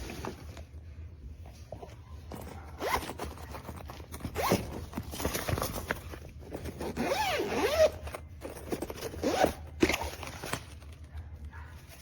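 Luggage zipper pulled open and shut in several quick strokes, with the longest run of strokes a little past the middle.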